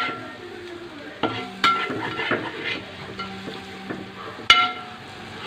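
A metal spatula stirring and scraping frying onion and tomato masala in a metal pot, over a low sizzle. Three times, near the start, about one and a half seconds in and about four and a half seconds in, the spatula knocks the pot with a short ringing clang. The freshly added chopped tomatoes are being fried down into the curry base.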